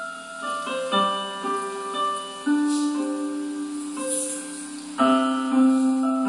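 Instrumental keyboard music: a slow line of held notes over sustained chords, with a fuller chord coming in about five seconds in.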